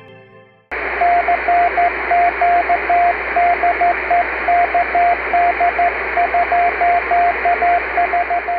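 Morse code (CW) on a ham radio receiver: a single steady tone keyed in short and long marks over band-limited static, which starts suddenly under a second in as the tail of the intro music fades out.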